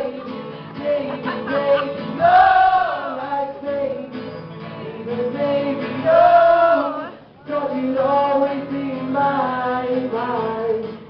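Live pop song: two male voices singing into microphones over two strummed acoustic guitars.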